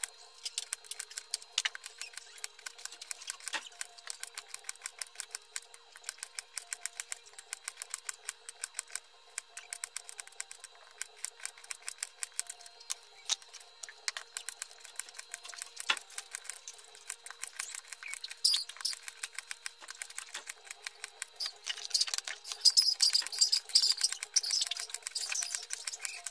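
Kitchen knife slicing through star fruit onto a plastic cutting board: quick, regular cutting clicks, a few a second, growing louder and crisper near the end.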